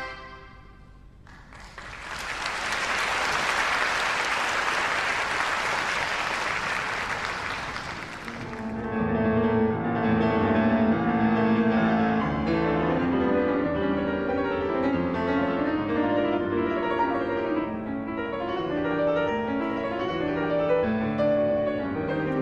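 The last chord of a wind band dies away, then audience applause for about seven seconds. About nine seconds in, a grand piano starts playing a classical piece with many quick notes.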